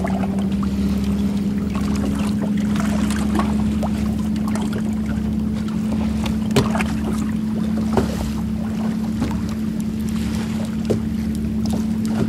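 Steady hum of an electric trolling motor on a bass boat, stepping up in pitch right at the start, over wind and choppy water lapping at the hull, with a few sharp knocks about six and a half and eight seconds in.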